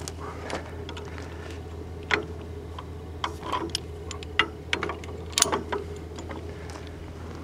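Irregular metal clinks and clicks of a steel winch hook and its spring latch knocking against a steel shackle as it is hooked on, over a steady low hum.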